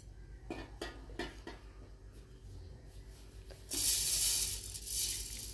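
A few light knocks and clicks, then a sudden loud, steady hiss that starts about two-thirds of the way through and keeps going.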